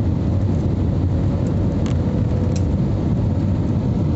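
Steady roar of a jet airliner's cabin on approach, engine and airflow noise heard from a window seat over the wing, heaviest in the low end.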